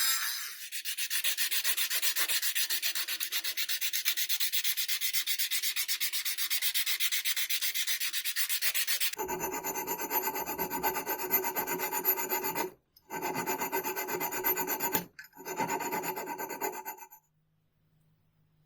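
Abrasive work on an old ax: fast, even rasping strokes for about nine seconds, then a different, steadier scraping with a hum running through it. The scraping pauses twice briefly and cuts off shortly before the end.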